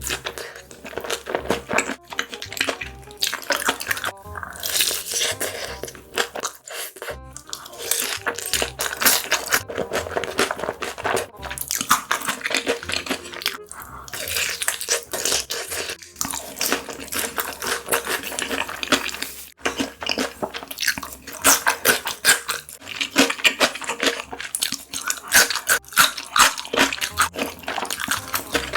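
Close-miked eating: crunching, biting and chewing of food, broken by a few brief pauses.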